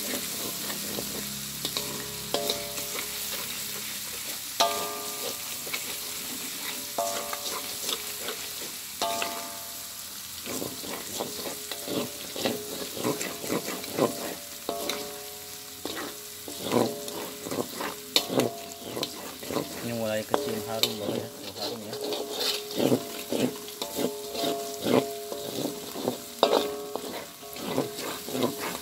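Ground spice paste sizzling in hot oil in a metal wok while a metal spatula scrapes and knocks through it again and again, with ringing metallic tones during many of the strokes. This is the paste being sautéed until fragrant.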